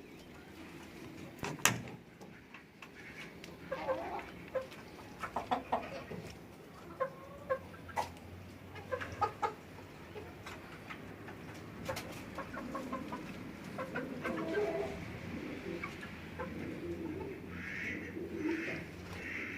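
Chicken chicks and a pigeon calling together: scattered short chirps and sharp clicks, with low pigeon cooing in the second half and a quick run of calls near the end.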